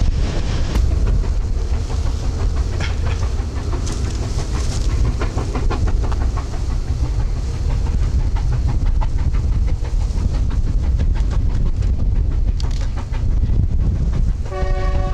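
A steam locomotive hauling a long freight train, with a steady heavy rumble and the clatter of wheels over rail joints. Near the end its whistle sounds, one held tone.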